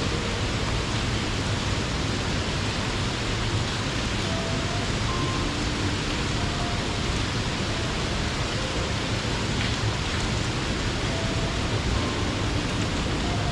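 A mountain waterfall falling into its pool: a steady, even rush of water with no change in level.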